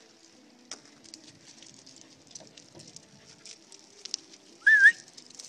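Faint scattered crackling, then near the end a short, loud whistle that rises and wavers: a person whistling to call dogs.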